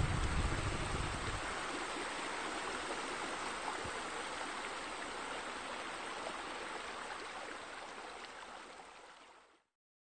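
Steady rushing of running water, like a stream or spilling pool water, with a low rumble under it that drops out about a second and a half in. The water fades out gradually and stops just before the end.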